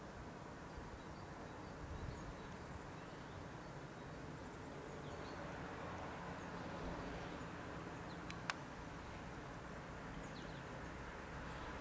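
Faint, steady low drone of a small propeller plane passing high overhead, with scattered faint bird chirps and one sharp click about eight and a half seconds in.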